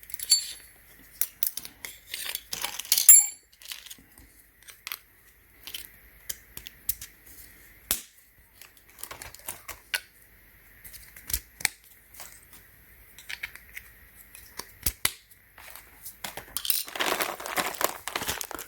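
Scattered clicks and taps of small dent-puller parts being handled, with a longer crinkling of plastic packaging near the end.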